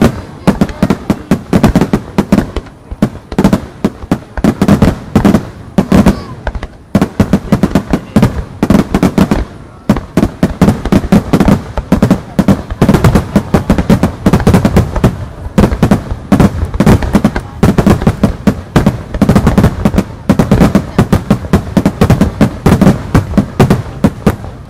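Fireworks display barrage: aerial shells bursting in dense, rapid succession, many loud bangs a second without a break.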